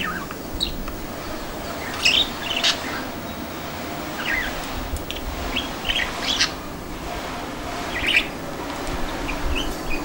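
Budgerigar chirping and chattering in short high calls, several spread through, the loudest about two seconds in and again near the eight-second mark.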